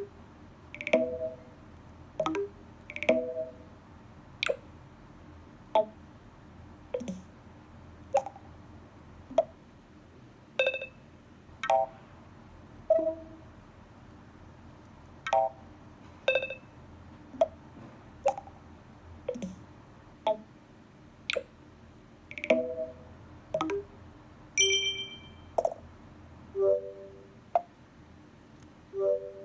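A run of macOS Big Sur system alert sounds played one after another: about two dozen short pitched chimes, pops and blips, roughly one a second, each different in pitch and tone.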